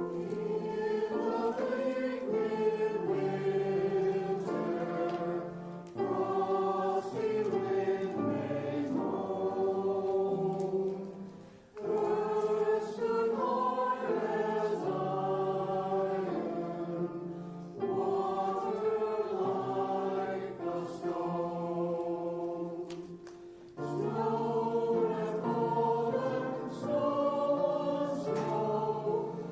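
Choir singing a hymn in phrases of about six seconds, each ending in a short breath before the next begins.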